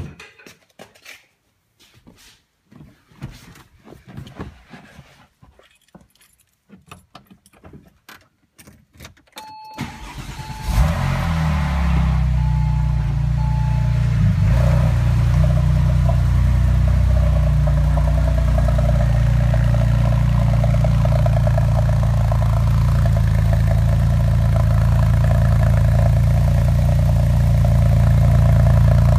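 Scattered clicks and keys being handled, a few short beeps, then the starter cranks and a 2001 Porsche 996 Turbo's twin-turbo flat-six catches about ten seconds in and settles into a loud, steady idle through its aftermarket headers, B&B exhaust and HJS sport cats.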